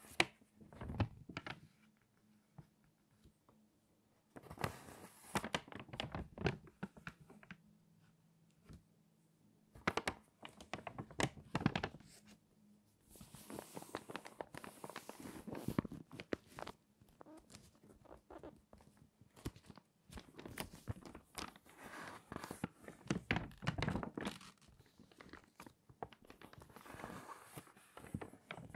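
Stiff, crinkly pages of water-damaged magazines being turned by hand, crackling and rustling in bursts every few seconds with quieter gaps between turns.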